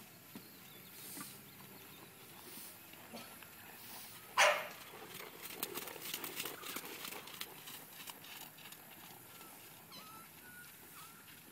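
Ridden horse moving on sand arena footing, its hoofbeats loudest as it passes close, with one short loud breathy blast about four and a half seconds in just before the run of hoofbeats.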